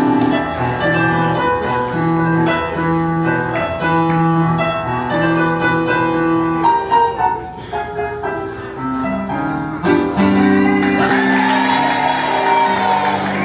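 Instrumental stage music led by a keyboard, with a melody over a moving bass line; it turns brighter and fuller near the end.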